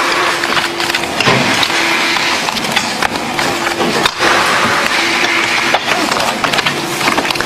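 Rapid, dense clicking and slapping of playing cards and cardboard card boxes handled at high speed by gloved hands, with a low hum that comes and goes.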